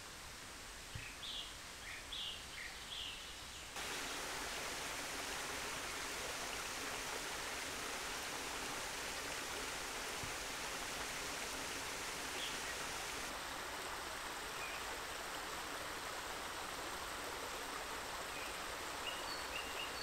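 A few short bird chirps over quiet background, then, about four seconds in, the sound switches suddenly to the steady rush of river water flowing over small waterfalls.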